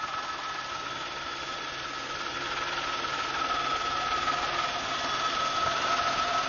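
Helicopter cabin noise: the steady drone of the engine and rotors with a high, even whine over it, slowly growing louder.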